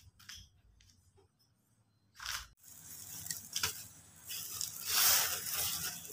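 Thin black plastic bag crinkling and rustling in the hand, with light scraping of a wooden stick on concrete, as cat droppings are scooped up. This begins about two and a half seconds in, after a quiet start, and comes as repeated crackly handling noises.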